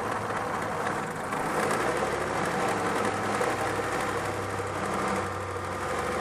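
Engine idling with a rapid tapping from the drive belt, where a frayed piece sticking off the belt slaps as it turns. It sounds just like a tapping valve, but the cause is the damaged belt, which needs changing.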